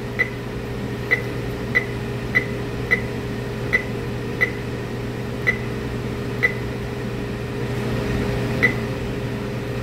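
Henny Penny Velocity pressure fryer's control panel beeping with each press of its arrow button: about ten short, high-pitched beeps at uneven intervals as the tech-mode screens are stepped through, over a steady low hum.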